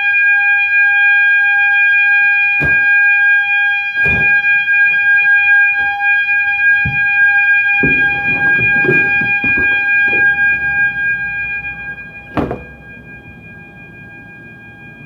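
Fire alarm horns sounding one steady, continuous tone. A few knocks and some rustling are heard over it, and after a louder thud about twelve seconds in the horn sounds much fainter.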